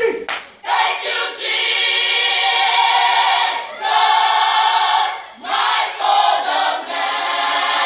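Gospel choir of men and women singing long held chords, in three sustained phrases with short breaks between them.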